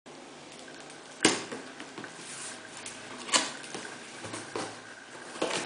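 Cardboard shipping box being handled and its top flaps opened: rustling and scraping of cardboard with two sharp knocks, the louder a little over a second in and another a little over three seconds in.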